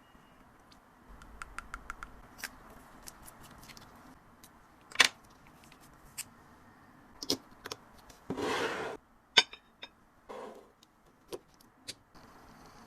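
Small perfume sample vials and packaging being handled: scattered light clicks and taps of small containers being set down and sorted, with a short rustle a little past the middle.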